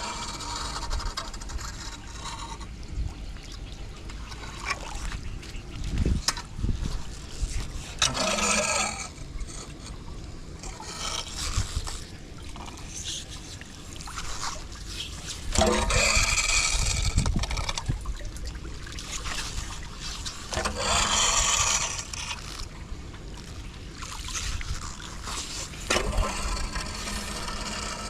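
Debris being scraped off a clogged street drain, with water trickling through, over a steady low rumble. Three longer, louder scraping passages come about a third of the way in, past the middle and again soon after.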